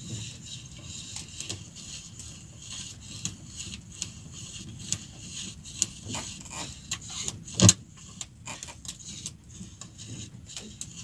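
Handline being hauled in by hand over the side of a small wooden outrigger boat: scattered light clicks and scrapes of line and hands against the hull over a steady low rumble, with one louder knock a little past the middle.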